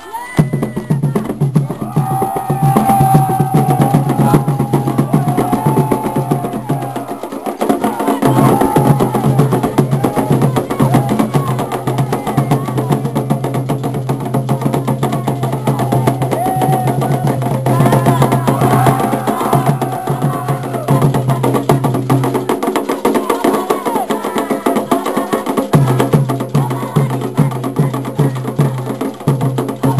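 Afro-Brazilian ritual music: hand drums playing a fast, steady rhythm with a struck wood-block-like percussion part, and voices singing over them. The drums drop out briefly twice, once about a quarter of the way in and again for a few seconds later on, while the singing carries on.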